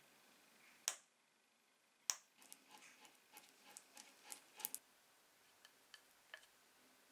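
Quiet work with glue and a spatula: two sharp clicks, then a run of faint small ticks and taps as the glue is spread, and a few more light ticks near the end.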